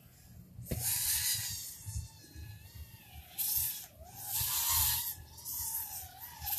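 FPV quadcopter's brushless motors and propellers whining, the pitch swooping up and down with the throttle. There are several loud rushing surges of prop noise, the longest about four to five seconds in.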